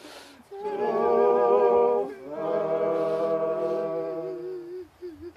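A group of voices singing a Samoan hymn unaccompanied, in long held notes. Two phrases, with a short break for breath about two seconds in; the singing dies away near the end.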